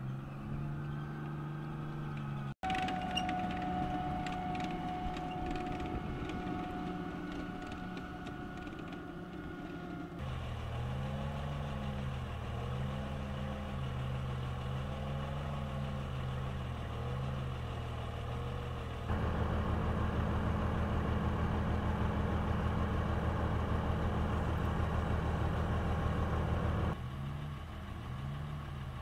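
Diesel engines of tracked M113-type armored vehicles running at a steady low speed. Through the middle stretch the pitch rises and falls again and again. The sound changes suddenly several times and drops out briefly a few seconds in.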